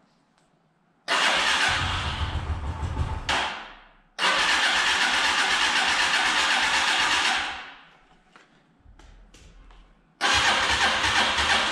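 Small kick-started engine being started after sitting unused for a month or two. It catches about a second in and dies after a couple of seconds, catches again and runs for about three seconds before dying away, then starts a third time near the end and keeps running.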